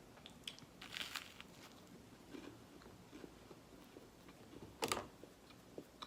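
Close-up eating sounds: biting and chewing crispy, dry, overcooked garlic bread. A crackly crunch comes about a second in, a sharper crunch just before five seconds in is the loudest, and small crisp ticks fall in between.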